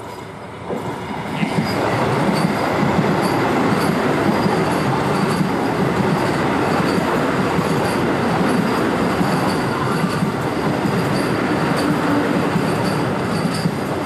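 Vande Bharat Express electric trainset passing close by at speed: a steady rush of wheels and coaches on the rail that swells over the first two seconds and then holds.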